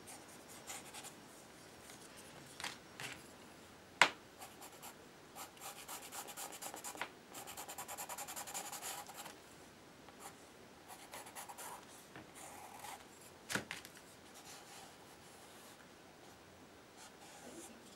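Charcoal pencil scratching over a painted paper surface in short, quick strokes, with a rubbing hand now and then. A sharp tap about four seconds in and a second one near 13 seconds.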